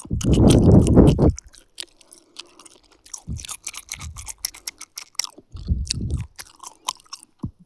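Chewing gum close to the microphone: wet mouth clicks and smacks, with a few soft low chews between them. The loudest thing is a low mouth sound about a second long at the start.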